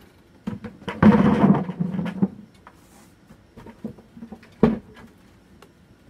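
Potatoes poured from a plastic tub into a plastic 5-gallon bucket, tumbling and clattering for about a second. A few light knocks follow, then one sharp knock near the end.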